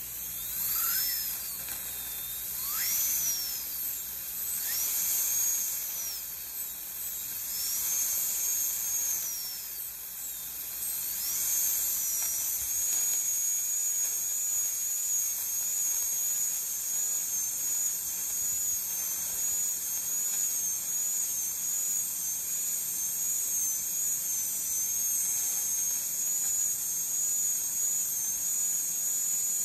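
High-speed dental handpiece with a round bur cutting out a silver amalgam filling from a molar. Its high whine swoops up and down in pitch for about the first twelve seconds, then holds nearly steady with a slight wobble.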